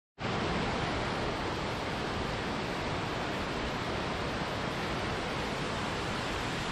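Waterfall and cascading mountain stream rushing steadily, an even wash of water noise that starts abruptly right at the beginning and holds at a constant level.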